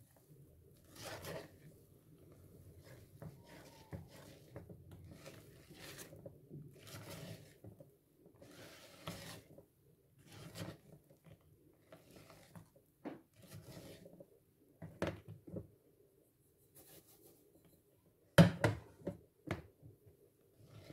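Silicone spatula folding semolina into a thick egg-and-sugar batter in a mixing bowl: soft, irregular scraping strokes against the bowl, with a short cluster of louder knocks near the end.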